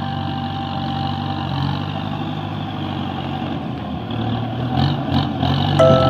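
Farm tractor's diesel engine running steadily under load as its front dozer blade pushes soil, with a couple of brief knocks near the end.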